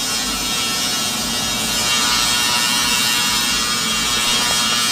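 Steady, loud electric buzz of a TIG welding arc on aluminium, the AC arc crackling without a break while the transom is welded to the hull.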